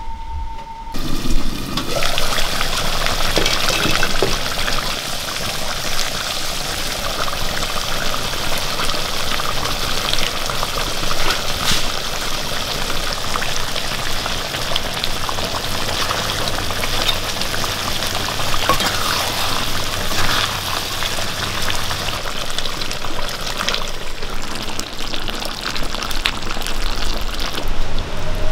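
Thick chicken curry sizzling and bubbling in an iron kadai over a wood fire, with a wooden spatula stirring through it. The crackling hiss starts about a second in and runs steadily, scattered with small clicks.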